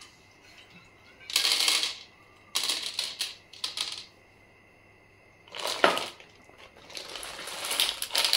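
Small coloured aquarium pebbles clicking and rattling against each other in a plastic bag, in several short bursts with pauses between.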